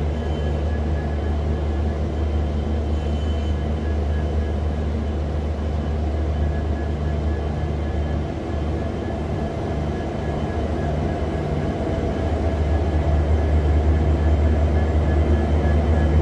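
WDP4 diesel-electric locomotive's engine running with a steady low drone and a regular throb about twice a second, growing louder in the last few seconds.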